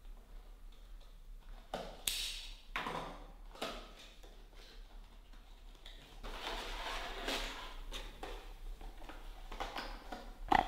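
Cardboard retail box being cut open and unpacked by hand: a few short scrapes and rasps of a utility knife on the box's seal, then longer rustling and sliding of cardboard as the box is opened and the inner packaging is pulled out, with one sharp click near the end.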